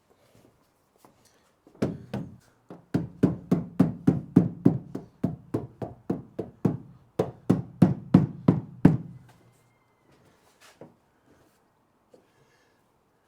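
A rubber door seal being knocked onto the metal flange of a van's sliding-door opening: about two dozen quick, even knocks, roughly three a second, each with a hollow ring from the steel body, stopping after about seven seconds.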